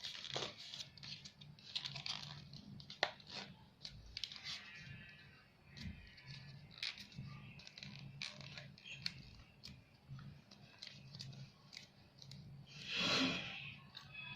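A sheet of origami paper rustling and crinkling as it is folded and creased by hand, with scattered small crackles and a longer, louder rustle near the end.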